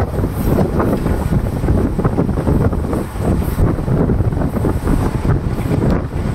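Wind buffeting the microphone at the open door of a moving Mumbai suburban local train, over the train's steady running noise on the rails.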